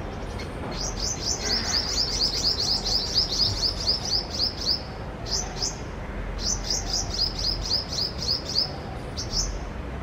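Tailorbird calling: a rapid run of sharp, high chirps, about six a second, which breaks off near the middle and starts up again.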